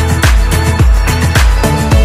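Background music with a steady beat: a deep kick drum strikes about every half second under held chords.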